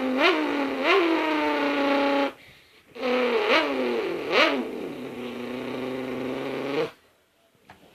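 A person imitating a car engine with his voice: two long held engine-like hums with brief upward pitch jumps like revs or gear changes, the first ending about two seconds in and the second running from about three to seven seconds.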